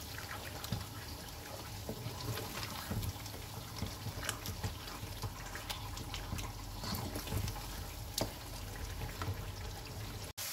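Beef keema gravy simmering and bubbling wetly in a karahi, with scattered little pops and the scrape of a slotted wooden spatula stirring it against the pan.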